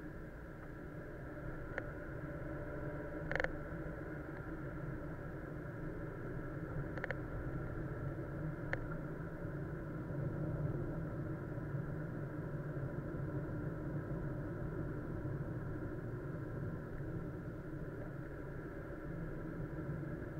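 Steady low rumble of a car driving, heard from inside the cabin, with a few sharp clicks or knocks in the first nine seconds, the loudest about three and a half seconds in.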